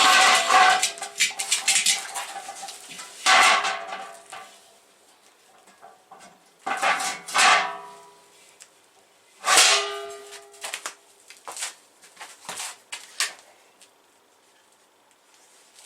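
Metal pieces clanking and knocking together, each cluster of knocks leaving a short metallic ring. There are four louder clusters a few seconds apart, then a few lighter knocks.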